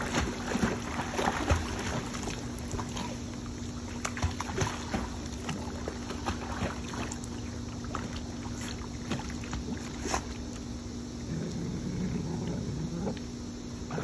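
Dogs paddling and splashing in a backyard inflatable pool: irregular water splashes and sloshing, over a steady low hum.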